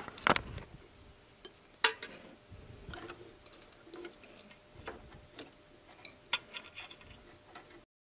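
Scattered sharp metallic clicks and clinks of a ring spanner and steel drill bits working the timing-belt tensioner roller as it is turned to tension the belt, the loudest about two seconds in. The sound cuts off suddenly near the end.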